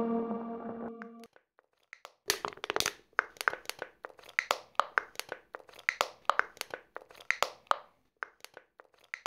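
A held electronic note stops about a second in; then, after a brief gap, foley crackling and crunching: an uneven run of sharp clicks, two or three a second.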